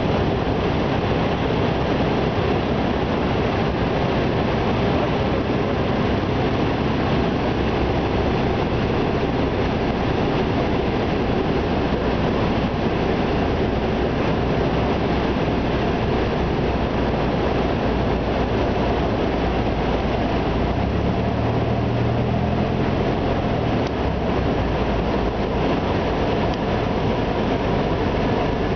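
Cessna 172 cabin noise in flight: the engine and propeller drone steadily under loud wind rush. The low engine note shifts for a few seconds about two-thirds of the way through.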